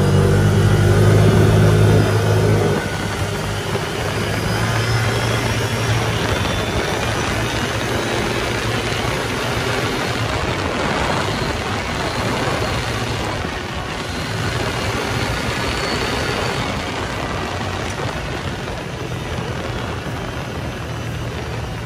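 A vehicle's engine pulling away, loud for the first two or three seconds, then a steady rush of engine and driving noise as it travels along.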